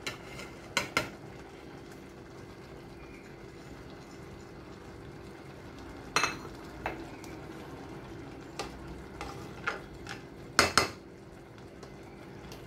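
Stainless steel pot of cooking rice being filled and stirred: a plate clinks on the pot's rim as vegetables are tipped in, then a rice spatula stirs and knocks against the steel. Scattered sharp clinks, the loudest pair near the end, over a steady low hum.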